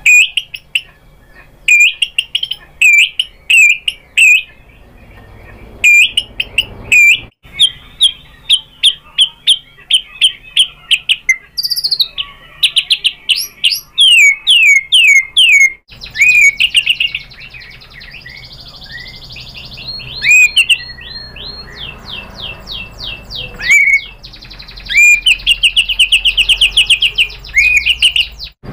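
White-rumped shama (murai batu) singing loudly: rapid runs of sweeping whistled notes and fast repeated phrases in bursts, with short pauses between them.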